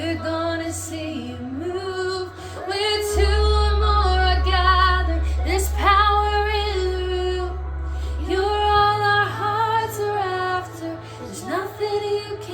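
A female voice singing a worship song with vibrato over held low bass notes, which shift to a deeper note about three seconds in and back up near nine seconds.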